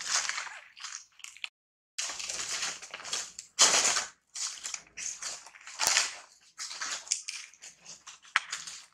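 Irregular bursts of crunching and rustling noise, a dozen or so short spells cut by brief silences.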